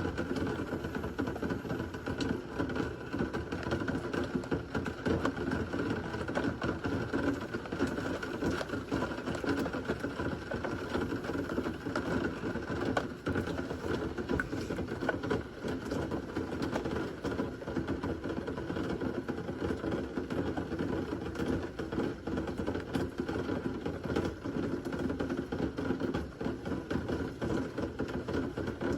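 Steady heavy rain: a dense, even patter of drops, with no thunder.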